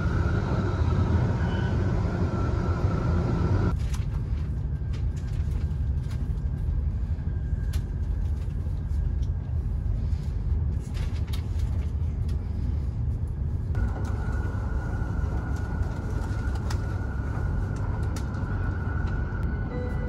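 Steady low rumble and hiss of a Hokuriku Shinkansen train running, heard inside the passenger cabin. A higher hiss drops away about four seconds in and comes back about two-thirds of the way through.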